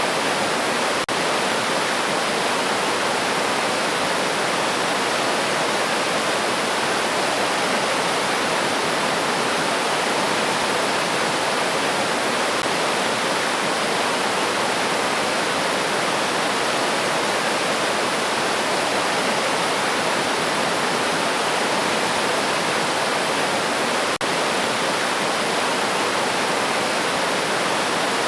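River water rushing steadily, an even, dense hiss with no change in strength, broken only by two momentary dips, one about a second in and one near the end.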